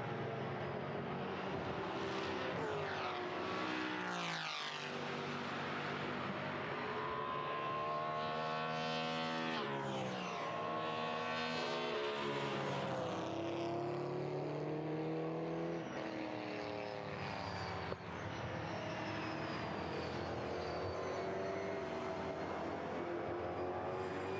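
BMW M3 E92 race cars' V8 engines at racing speed, the pitch repeatedly climbing through the revs and dropping at gear changes and braking. One car goes past about four seconds in.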